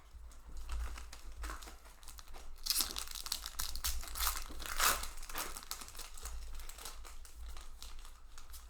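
Foil booster pack wrapper crinkling and being torn open, with the loudest rustling from about three to five seconds in.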